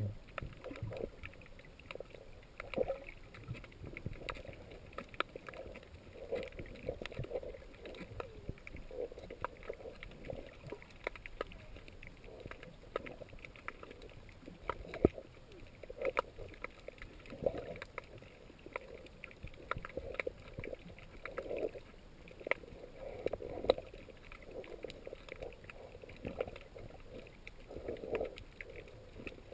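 Muffled underwater sound from a camera held below the surface: water moving against the housing in irregular swells every second or two, with many faint scattered clicks.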